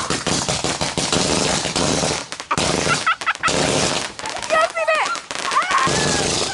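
Consumer fireworks going off in rapid strings of crackling pops, like gunfire, dense for the first couple of seconds and again in a second burst about halfway through. Several short high-pitched rising and falling glides are heard among the pops in the second half.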